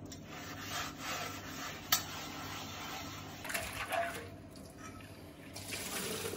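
Sponge scrubbing a cast iron skillet at a kitchen sink with cold tap water running: a rough rubbing and swishing that comes and goes, with a single sharp knock about two seconds in.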